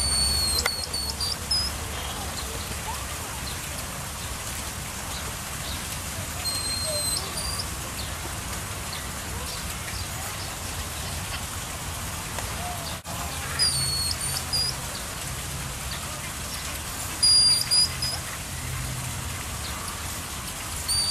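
Tamarin monkeys giving short, high-pitched screams, several times a few seconds apart, the loudest late on, over a steady background hiss. The screams are their alarm call at an intruder in their territory.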